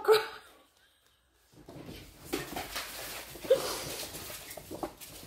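A woman crying quietly: sniffs and shaky breaths after about a second of near silence, with a brief whimper about three and a half seconds in.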